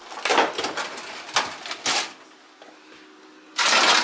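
A KitchenAid bottom-mount freezer drawer being pulled open on its slides, with scraping and clattering from the wire basket and packed containers. About three and a half seconds in there is a louder rustle and clatter as things in the drawer are moved.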